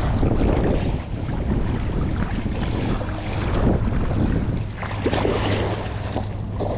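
Wind buffeting the microphone as a rough low rumble, with a steady low hum joining about halfway through and a few light knocks near the end.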